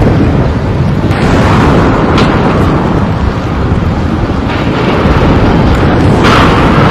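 Volvo demolition excavator working in rubble: a loud, steady diesel rumble heavy in the bass, mixed with wind buffeting the microphone. Louder surges of crunching debris come about one second in, past four seconds and again near the end, with a short sharp crack near two seconds.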